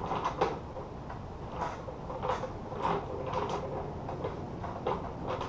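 Irregular clinks and knocks of metal parts and hand tools being handled on a workbench, during reassembly of a Honda manual transmission.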